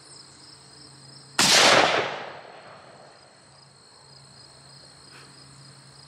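A single shot from a .458 Winchester Magnum rifle about a second and a half in, a sharp, very loud report that dies away over about a second. A steady high insect chorus carries on underneath.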